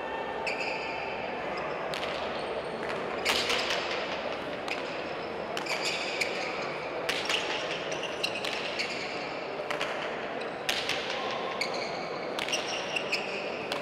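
Frontón rally: the pelota ball knocking sharply against the front wall, floor and players' paddles about once a second, each hit ringing in the large hall.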